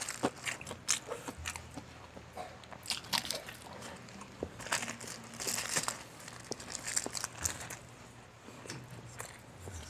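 Crispy fried chicken (Jollibee Chickenjoy) being bitten and chewed close to the microphone, with loud crunches in clusters and the paper wrapper crinkling in the hand.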